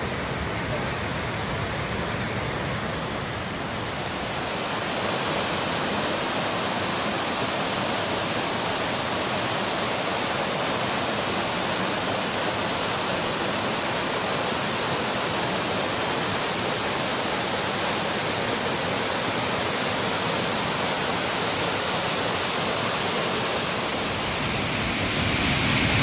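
Waterfalls and a fast mountain stream in early-spring flow: a steady rush of falling water. It grows louder about four seconds in.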